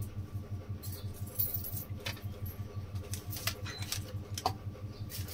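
Light clicks and taps of kitchen bowls and containers being handled, several scattered through, over a low steady hum.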